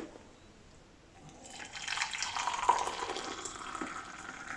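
Water pouring into a cup, starting about a second and a half in and running steadily.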